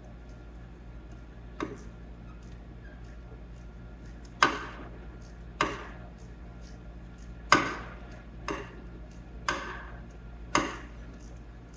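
Sharp metallic clicks from a spark plug socket and wrench working the old plugs loose, seven of them about a second apart, each with a short ring.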